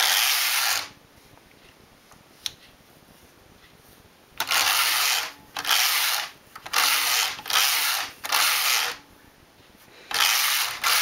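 Domestic flatbed knitting machine's carriage pushed back and forth across the metal needle bed, the needles rattling under it. There are seven short passes of under a second each: one at the start, a quick run of five from about four seconds in, and one more near the end.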